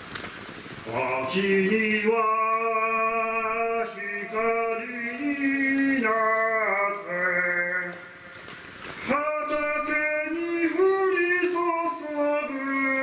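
A man singing a slow melody with long held notes, breaking off briefly about eight seconds in before carrying on.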